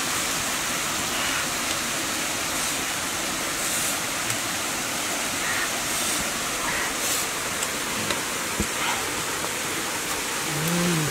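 Steady rushing of a waterfall, with a few faint taps of a stone pestle in a stone mortar and a short voice-like hum near the end.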